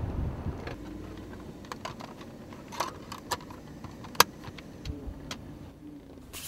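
Inside a car: a low rumble that fades in the first second, then a few scattered sharp clicks and small rattles as things on the dashboard are handled, with the loudest click about four seconds in.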